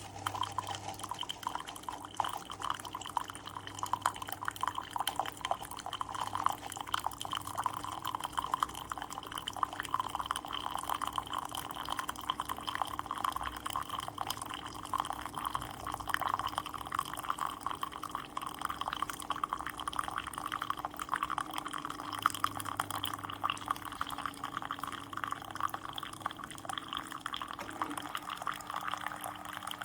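Keurig K-Express single-serve coffee maker brewing: hot water sputtering and dripping into a cup over a steady low hum from the machine.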